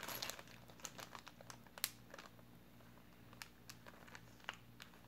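Faint handling of jewelry on a wooden tabletop: scattered light clicks and rustles, with one sharper click about two seconds in, over a faint steady hum.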